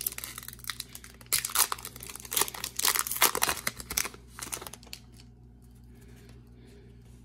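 Topps Opening Day baseball card pack wrapper being torn open and crinkled: a dense run of sharp crackles and rips that dies away about five seconds in.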